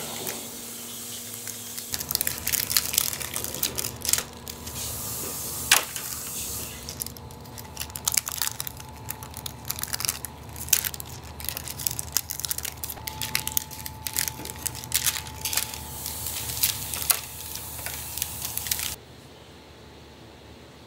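Clear plastic film crinkling and crackling in many sharp bursts as thin chocolate decorations are peeled off it, over a steady low hum. It stops abruptly about nineteen seconds in, leaving quiet room tone.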